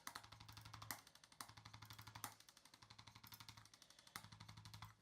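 Chiropractic adjusting instrument running against a patient's back, giving faint rapid ticking pulses in several short bursts with brief pauses between them.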